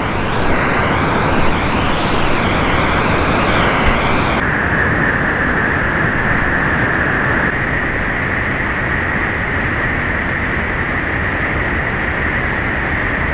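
Steady rushing of whitewater in a steep mountain river gorge. About four seconds in the sound changes abruptly to a smoother, steadier hiss.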